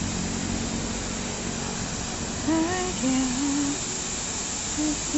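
A person humming a few short notes of a tune from about halfway, over a steady rushing noise.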